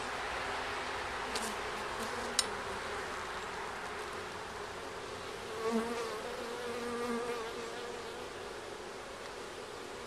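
Honey bees buzzing steadily around an open hive. One sharp click comes about two and a half seconds in. Around six to seven seconds in, one buzz grows louder and takes on a clear pitch.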